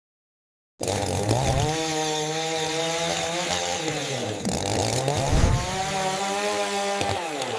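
A small engine revving hard, rising in pitch, dropping, and rising again, with a harsh rasp over it. It starts abruptly about a second in.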